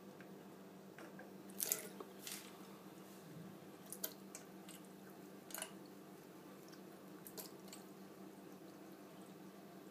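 Cat lapping water from a thin stream at a tap: a handful of brief wet clicks and splashes at uneven intervals, the loudest two close together about two seconds in, over a faint steady hum.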